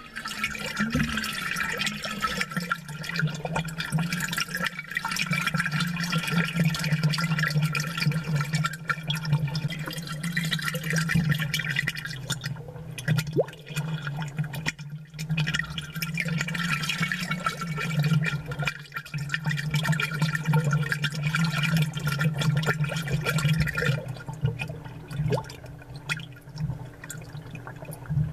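Aquarium water bubbling and gurgling, amplified, with many small bubble pops over a steady low hum, the kind an aquarium air pump gives.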